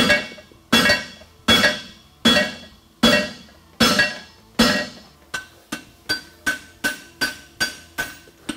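Farrier's hammer striking a red-hot bar of 5/8-inch square steel on a block on the anvil, each blow ringing. Heavy, even blows come about one every 0.8 s, then from about five seconds in the blows turn lighter and quicker, about three a second, with a higher ring. The blows pack the steel into the block to form the shoe's heel caulk.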